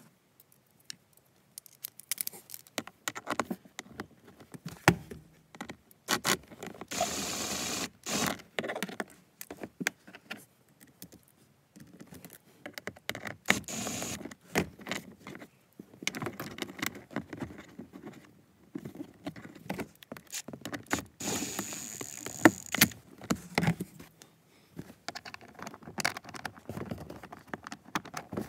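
Small power driver running bolts in three short runs, each about a second long with a high whine, amid clinks, rattles and scraping of tools and the plastic cover under a truck's dash.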